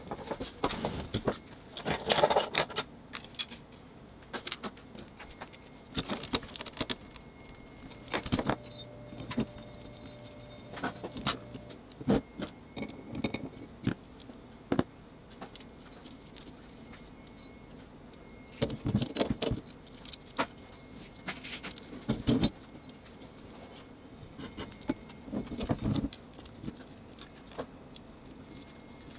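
Irregular clicks, taps and light rattles of small hard parts and tools being handled, coming in short clusters with quiet gaps between them. A faint steady hum runs for a few seconds in the middle.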